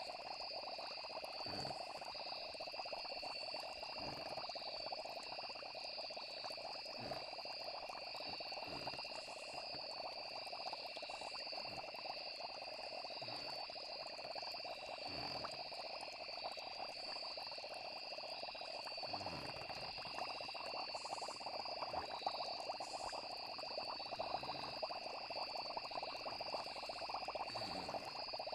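Night nature ambience: a steady, high chorus of crickets with frogs calling densely beneath it, and scattered short low plops every second or two.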